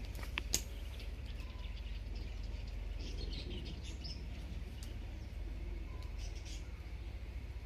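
Bird chirps in short scattered bursts over a steady low hum, with a couple of sharp clicks about half a second in.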